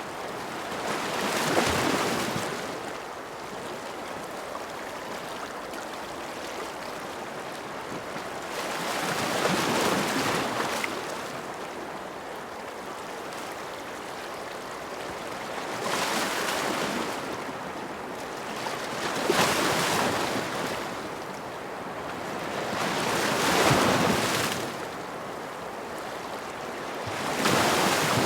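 Ocean waves washing onto a shore: a steady hiss of water with a wave surging up and falling away every few seconds, six times.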